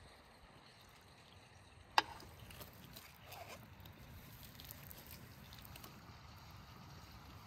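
Knife carving a roast turkey: faint cutting and scraping through the crisp skin and meat, with one sharp click about two seconds in.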